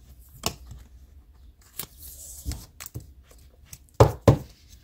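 Faint plastic rustling and small clicks as a baseball card is slid into a penny sleeve and plastic top loader, then two sharp knocks near the end.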